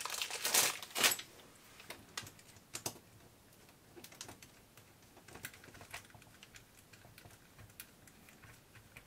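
Small clicks and taps of hands fitting a pin into the blue aluminium front steering parts of a 1:18 RC car. A few louder scrapes in the first second, then scattered light clicks.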